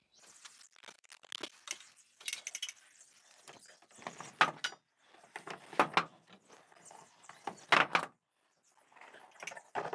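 Light metallic clanks, knocks and rattles of an aluminium stepladder being climbed and a hanging bug zapper being handled and unhooked, with louder knocks about four, six and eight seconds in.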